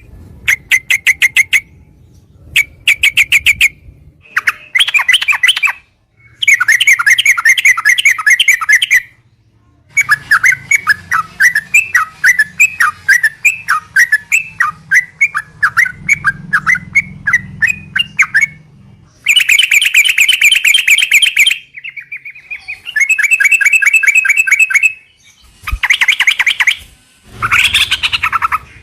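Yellow-vented bulbuls (trucukan) calling in loud bursts of fast, repeated chattering notes, separated by short pauses, with one longer bubbling run in the middle. It is a lure recording meant to set other trucukan singing.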